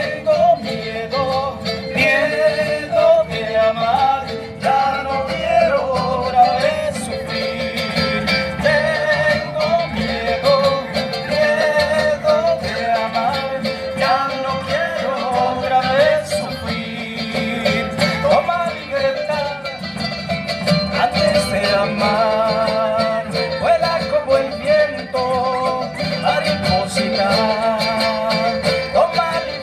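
Instrumental break of a Latin band's song: a quick, wavering lead melody over a steady bass and rhythm accompaniment, with no lyrics sung.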